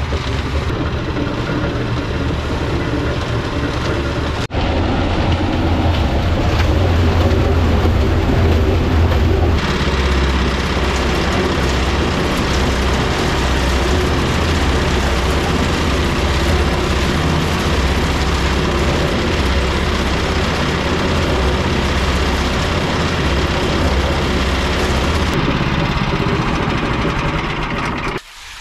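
Gas-powered concrete mixer running steadily: its Honda single-cylinder engine drones while it turns the drum through the belt drive. The sound steps louder about four seconds in.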